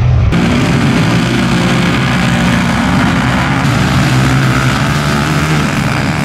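Several youth racing ATVs (quad bikes) running at high revs as they race, their engines rising and falling in pitch.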